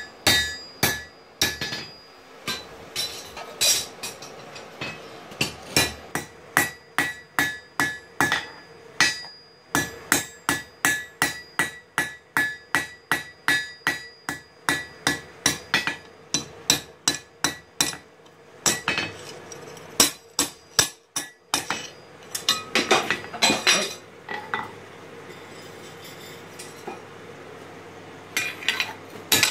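A hand hammer strikes red-hot steel on an anvil, forging a knife blade, in a steady rhythm of about two blows a second, each with a bright metallic ring. Later the blows turn irregular, stop for a few seconds, then start again near the end.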